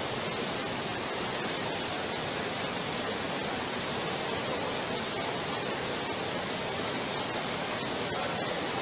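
Steady, even hiss of noise like static, with no distinct events in it.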